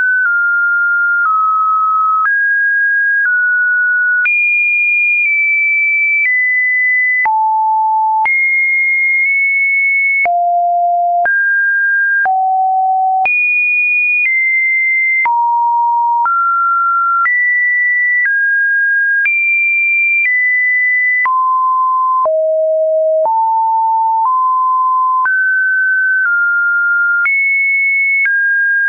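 Webdriver Torso test tones: a string of computer-generated pure beeps, each held steady for about a second before jumping to a new pitch, some high and some mid-range, with a faint click at each change.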